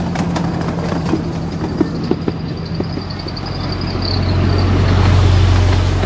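A miniature railway locomotive and its loaded ride-on passenger cars approaching and passing close by. A low steady engine hum builds to its loudest about five seconds in as the train goes by. A faint high wheel squeal sounds before it.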